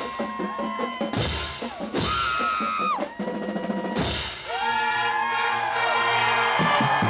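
Marching band drumline playing, with heavy bass drum and snare hits, over a crowd cheering and yelling.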